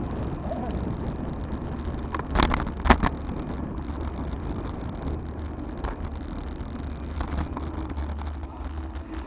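Wind buffeting a bike-mounted action camera's microphone with steady road rumble from a road bicycle riding along tarmac, broken by two sharp knocks about two and a half and three seconds in.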